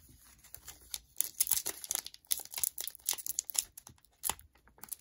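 Foil wrapper of an Upper Deck hockey card pack crinkling in quick, irregular crackles as it is handled and picked open at its top seam by hand.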